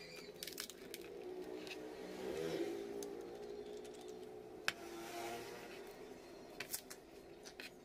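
A steady engine hum in the background, swelling about two and a half seconds in, with a few sharp clicks of steel pipe pieces being handled.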